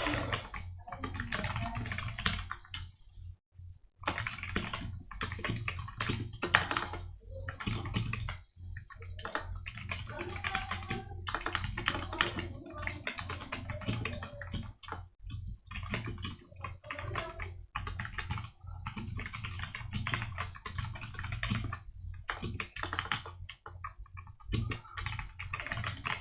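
Fast typing on a computer keyboard in runs of a few seconds, broken by brief pauses, over a low steady hum.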